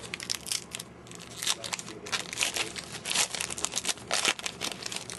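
Crinkling and rustling of a trading-card pack and its cards being handled: irregular crackles and paper-like scrapes.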